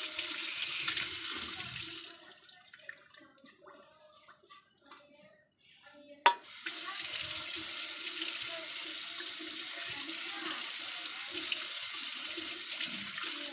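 Water from a kitchen tap running into a stainless steel sink as things are rinsed under it. It runs for about two seconds, gives way to a quieter stretch with small clicks, and a sharp knock about six seconds in is followed by the tap running again for the rest.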